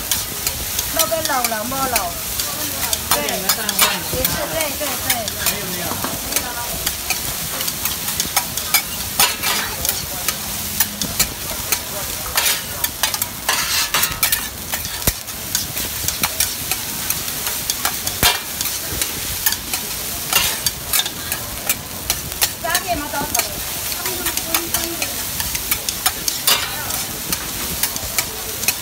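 Egg fried rice sizzling on a large flat griddle as a metal spatula stirs, scrapes and spreads it, with frequent sharp scrapes and clicks of metal on the cooking surface.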